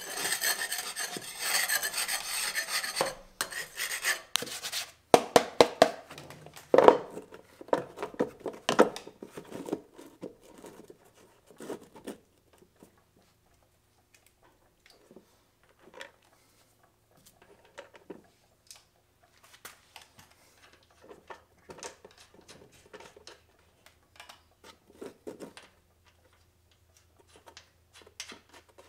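Spindle pulley cover being fitted onto a zero-turn mower deck: a scraping rub for the first three seconds, then a run of clicks and knocks as it is seated, then scattered faint taps.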